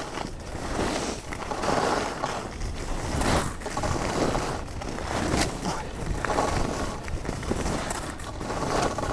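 Skis carving and scraping on groomed snow: a hiss that swells and fades every second or so as the turns go, over a low rumble.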